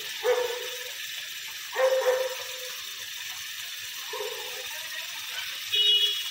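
Tap water pouring steadily into an earthen clay pot, a continuous splashing hiss. Four short pitched calls, about a second or more apart, stand out over the water; the last, near the end, has a high ring to it.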